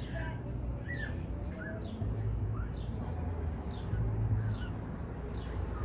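Small birds chirping: many short, quick chirps, several a second, over a steady low rumble.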